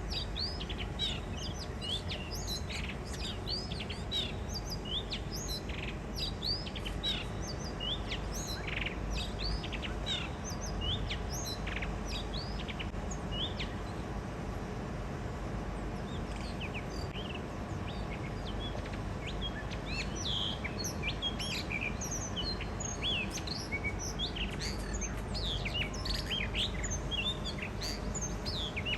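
Blue rock thrushes singing their spring song: a steady run of short, quick, high chirped notes, over a low background rumble.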